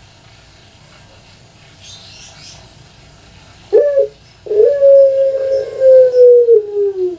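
A puter pelung, a Barbary dove (Streptopelia risoria), cooing. A short note comes a little before the middle, then one long drawn-out coo held nearly three seconds, sliding slowly down in pitch.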